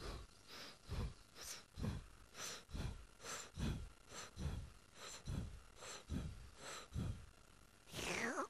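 Cartoon snail panting heavily, short in-and-out huffs about twice a second as it strains after a dangled leaf. Near the end comes one quick falling glide.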